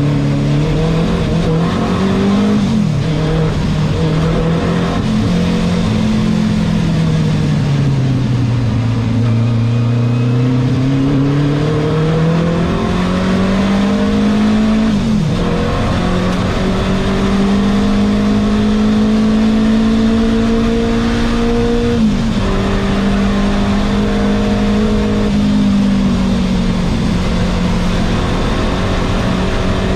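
Renault 5 Turbo 2's turbocharged four-cylinder engine heard from inside the cockpit on a racing lap. The engine note climbs under acceleration and drops sharply at each of about four upshifts, and it sags low and rises again in the middle as the car slows for a corner and powers out.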